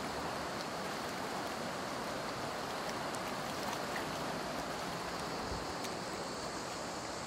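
Steady rushing of a fast, turbulent river flowing past.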